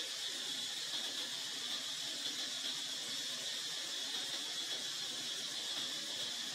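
Steady high-pitched hiss of outdoor background noise, unchanging throughout, with no distinct events.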